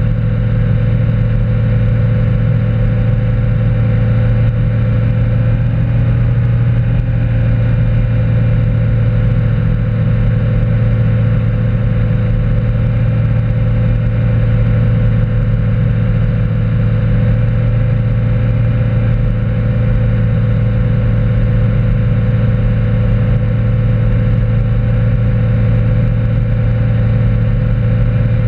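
Motorboat engine running steadily at towing speed, with the rush of the churning wake behind the stern.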